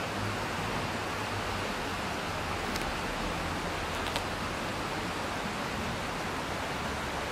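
Shallow stream running steadily over gravel and rocks, with two faint ticks about a second apart near the middle.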